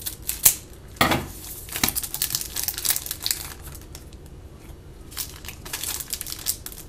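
Trading card pack wrappers crinkling as cards are pulled from packs that have been cut open, with irregular sharp crackles throughout, the loudest about half a second and one second in.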